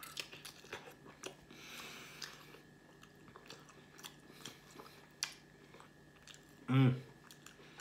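A person biting and chewing a mouthful of hot pork, cheese and bacon sausage, with many small wet smacking clicks. There is a breathy hiss about two seconds in and a short hummed 'mm' near the end.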